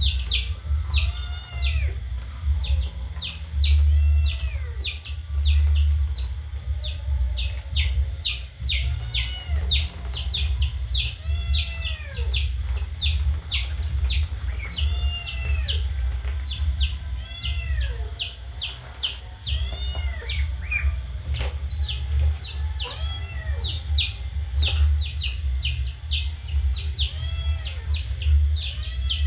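Duckling peeping continuously: short, high calls that sweep downward, a couple a second, with some lower arching calls among them and a steady low rumble underneath.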